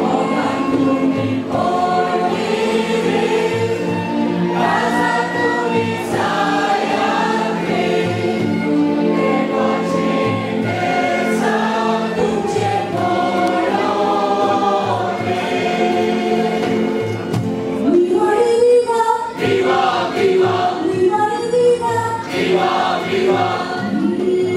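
A Goan mando sung by a mixed choir of men and women, accompanied by violin, keyboard and a ghumot hand drum. The singing is steady and continuous, with some sliding notes in the last few seconds.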